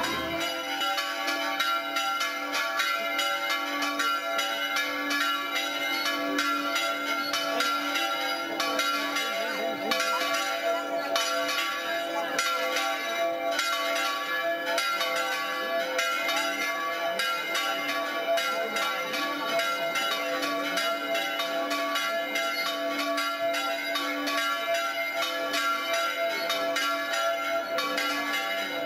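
Church bells ringing in a fast, continuous peal, one stroke running into the next without a pause.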